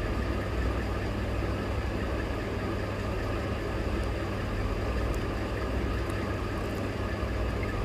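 Steady low motor hum, even throughout, with a few faint soft ticks of the fabric strip being handled.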